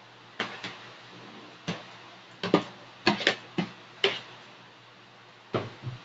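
A cooking utensil knocking and clacking against a pan as vegetables are stirred in, about a dozen irregular sharp knocks, bunched in the middle and again near the end.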